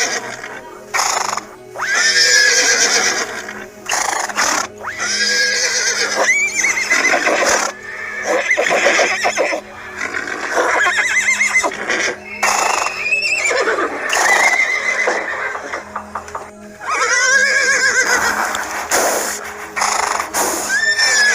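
A horse neighing again and again, with a whinny every two or three seconds, each one a high call that rises and falls.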